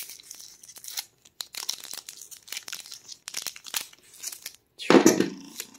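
Crinkling and tearing of a foil Pokémon booster pack wrapper being handled and opened. The sound comes as a run of small crackles, with a louder burst about five seconds in.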